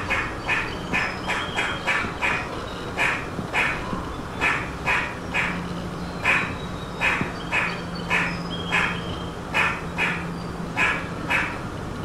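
Eastern grey squirrel giving a long run of short, harsh alarm barks, about two a second.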